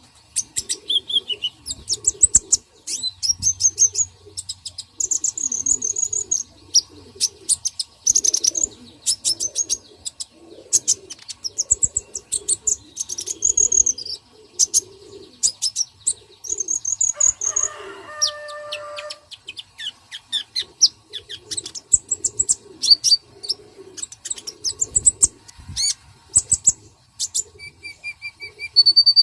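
Birds chirping and calling in quick, dense bursts of high chirps, with lower calls underneath. A steady high tone sets in near the end.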